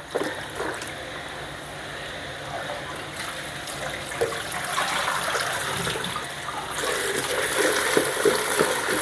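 Kitchen tap running into a plastic basin in a stainless steel sink while red chillies are rinsed and rubbed by hand, water splashing and spilling over into the sink. The rush of water gets louder about two-thirds of the way through.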